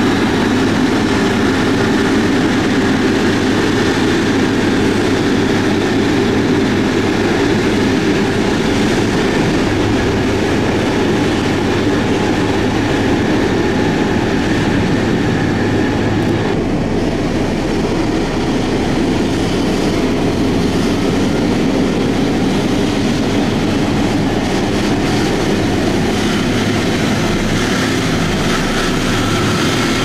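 SANY heavy road-building machine's diesel engine running under load with a steady rumble. A faint high tone in the mix stops about halfway through.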